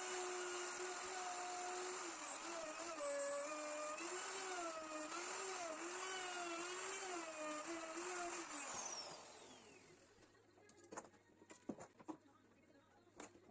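Enkor Korvet-46 benchtop drill press motor running, its pitch wavering up and down repeatedly, then switched off and winding down about nine seconds in. A few sharp knocks follow near the end.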